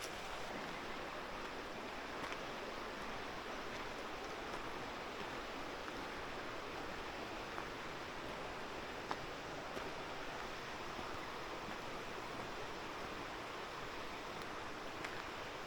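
Steady rushing of a mountain stream, with a few faint ticks over it.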